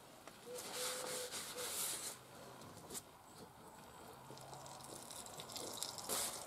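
Soft hissing and rubbing as a bacon-grease-coated paper towel is wiped over the hot cast iron grate of a charcoal-fired Lodge portable grill, in two spells of a second or two, one soon after the start and one near the end.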